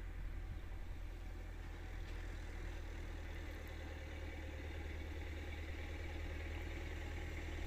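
A steady low engine rumble, like a motor idling, holding even throughout.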